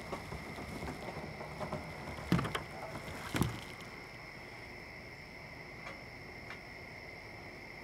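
Knocks and thuds of someone moving about inside a wooden boat's cabin, louder twice in the first half, then a few faint clicks, over a faint steady high tone.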